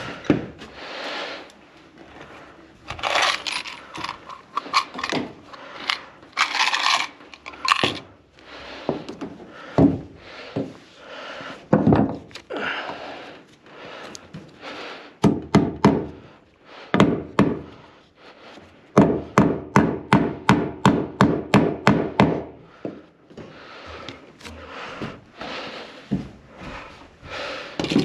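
Hand-tool and hardware handling while mounting and wiring ceiling light fixtures: scraping and clattering knocks, with two runs of quick evenly spaced clicks or taps, about five a second, past the middle.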